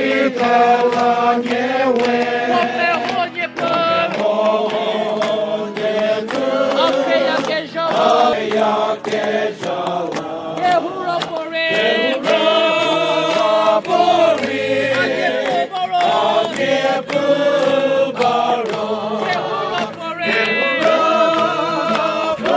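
A group of voices singing a song together, holding long notes in a steady flow without breaks.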